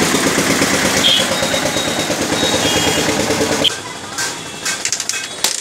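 An engine running with a fast, even beat, which cuts off abruptly about two-thirds of the way in, followed by a few light clicks and taps.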